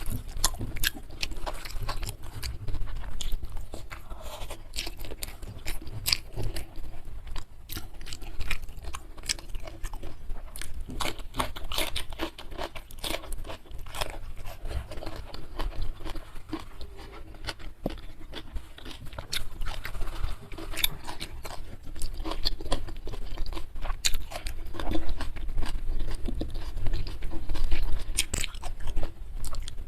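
A person chewing and crunching food close to the microphone: a dense, irregular run of crisp crunches and wet mouth clicks.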